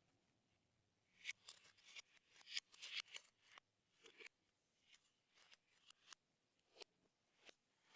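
Slime being squished and pressed by hand: a run of small wet clicks and pops at an uneven pace, starting about a second in.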